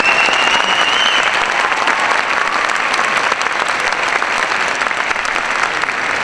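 Audience applauding steadily, with a short rising whistle in the first second.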